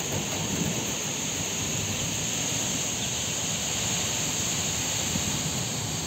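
Strong wind gusting through tree foliage ahead of a rainstorm, a steady rush with low buffeting on the microphone that swells and eases.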